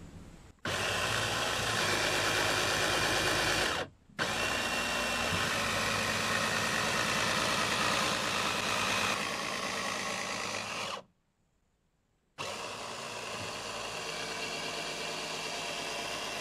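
Cordless drill motor driving a homemade electric helm steering, running in three spells of several seconds each as the outboard is turned left and right; each run starts and stops abruptly.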